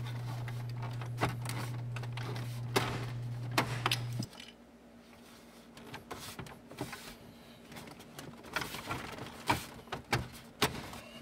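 Plastic dash trim clicking and knocking as the panel is pushed into place and its clips are snapped in, with a low steady hum that stops about four seconds in.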